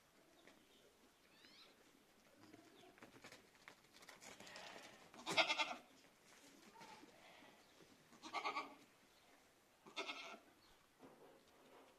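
Goats bleating: three short bleats, the loudest about five seconds in and two more a few seconds apart near the end.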